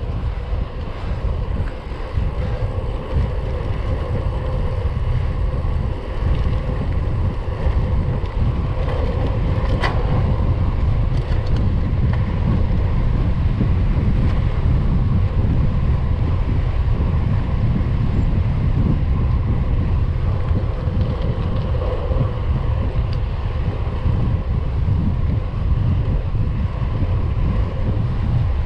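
Wind rushing over the microphone of a handlebar-mounted camera on a road bike riding along a tarmac lane: a steady, heavy low rumble. A single sharp click comes about ten seconds in.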